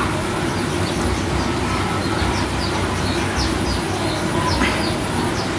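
Steady rumble of passing road traffic, with small birds chirping over it in many short, quick, falling chirps.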